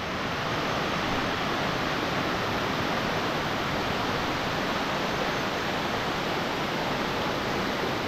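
Waterfall water rushing: a steady, even hiss with no change.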